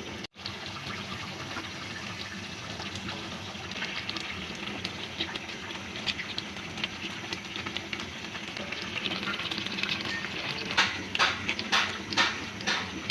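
Tomato stew simmering and bubbling in a pot, with a steady fine crackle. Near the end come several sharp clatters.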